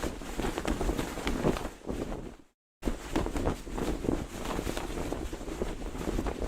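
Cloth flag flapping in the wind, with rapid, irregular snaps and a constant rush of wind. The sound drops out to complete silence for a fraction of a second about two and a half seconds in, then resumes.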